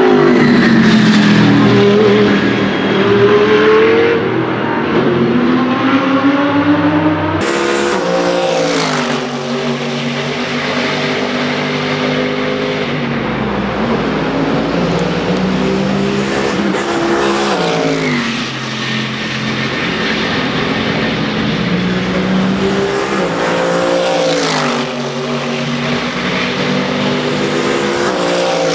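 GT3 race cars at speed on track. Their engines climb in pitch under acceleration and drop sharply at each upshift, with falling notes as they brake into corners. At the start an Audi R8 LMS evo's V10 slows into a corner and then accelerates away.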